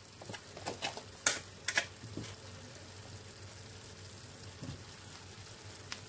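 Pot of jollof rice simmering quietly under a glass lid, with a few light clicks and taps in the first two seconds.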